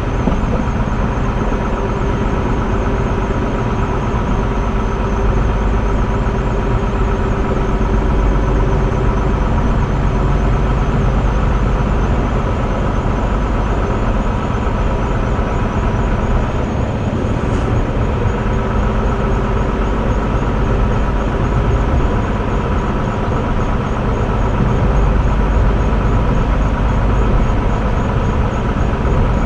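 Electric passenger train running along the track: a steady low rumble of wheels on rail with a steady mechanical hum made of several held tones.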